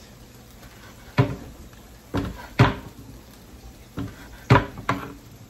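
Kitchen knife chopping ham on a cutting board: six sharp knocks at uneven spacing, each with a short ring.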